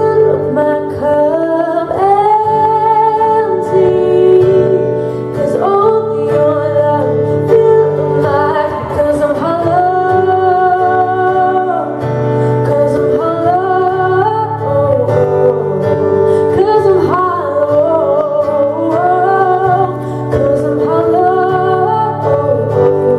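Female solo voice singing a worship song over acoustic guitar accompaniment, amplified through a PA, with long held notes.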